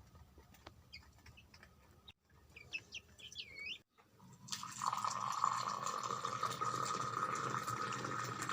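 Baby chicks peeping in short, faint chirps, cut off abruptly twice. About halfway through, water starts running steadily and drowns them out; it is the loudest sound.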